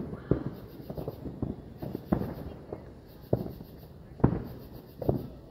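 Consumer fireworks going off: a run of sharp bangs at uneven intervals, each trailing off in an echo, with the loudest ones in the second half.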